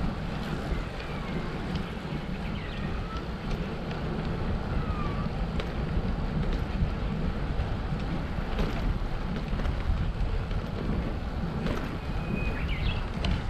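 Wind rushing over the microphone of a camera on a moving bicycle: a steady, rumbling haze. A few faint, short high chirps come in the first few seconds and again near the end.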